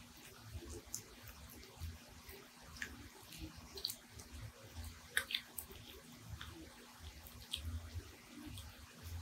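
Small dog chewing with its mouth open: soft, irregular wet smacking and clicking.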